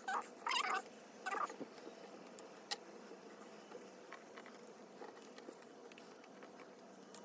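Photocards and postcards being gathered and stacked by hand: faint sliding, rustling and light taps of card on card and on the desk, over a steady low hum. A few short wavering voice-like sounds come in the first second or so.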